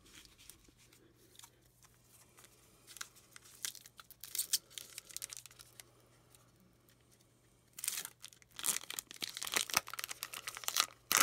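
Foil wrapper of a 2020-21 Series 2 hockey card pack being handled and torn open by hand: scattered crinkles at first, then a dense stretch of tearing and crinkling from about eight seconds in.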